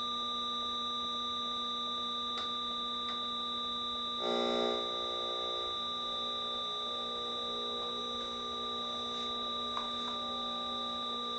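Several steady, pure electronic tones at different pitches sounding together from a setup of small amplifiers and effects pedals, with a brief louder, buzzier chord about four seconds in. A few faint clicks come as cables and gear are handled.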